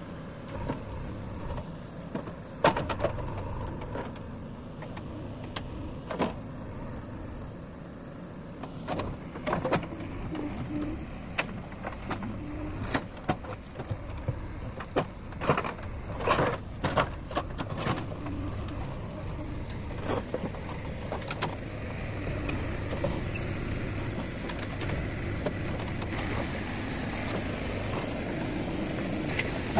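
JCB 3DX backhoe loader's diesel engine running steadily under hydraulic load, with many sharp knocks and clatters of stones and earth against the steel bucket, thickest midway through. The engine grows a little louder toward the end.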